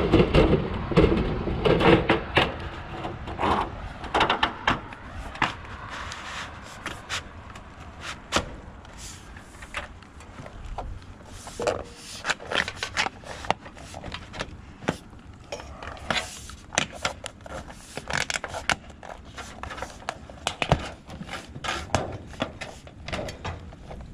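Scattered knocks, clicks and scrapes of a bent aluminum trim piece being handled and test-fitted, busiest in the first few seconds.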